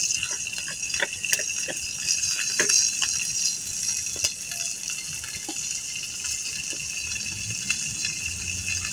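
Water poured from a plastic bottle over fresh pandan leaves as they are rinsed, with scattered sharp snaps from a wood campfire. A steady high-pitched hiss runs underneath.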